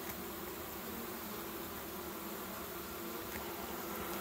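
Honeybee colony buzzing in a steady, even hum over the open top bars of a nuc hive. The colony is calm, with bees fanning to spread scent from their Nasonov glands.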